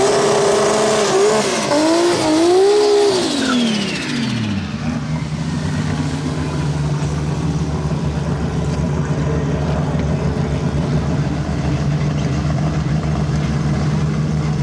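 Drag race car engine at high revs, its pitch rising and dipping, then falling away about four seconds in. After that a steady low engine idle.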